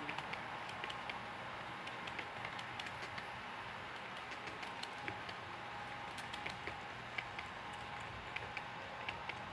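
Model train's baggage and mail cars rolling past on the layout track, a steady rolling rumble with irregular light clicks from the wheels on the rails.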